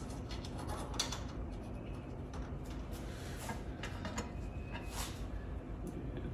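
Faint, scattered metallic clicks and scrapes as a factory hinge bolt with a washer is threaded by hand into a hole through raw steel corner armor.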